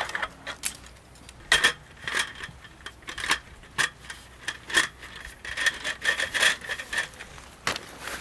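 Small metal objects handled and knocked together: a quick, uneven run of light clinks and rattles, some with a brief ringing tone.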